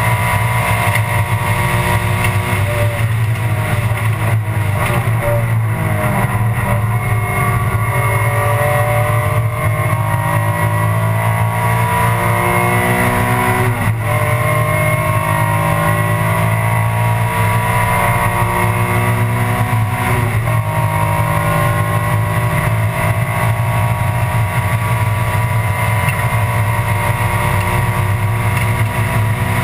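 Alfa Romeo 156 GTA race car's engine heard from inside the cockpit, accelerating under load with its pitch climbing slowly, dropping at an upshift about 14 seconds in and again about 20 seconds in.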